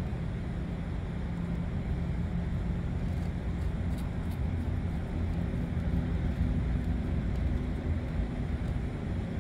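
Steady low hum of running machinery, several fixed low tones over a constant noise, with a faint click or two about four seconds in.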